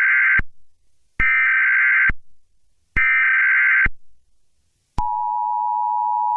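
Emergency Alert System tones: the end of one SAME header burst, then two more full bursts of harsh, screechy digital data tones, each just under a second long with short gaps. About five seconds in, the steady two-tone EAS attention signal begins.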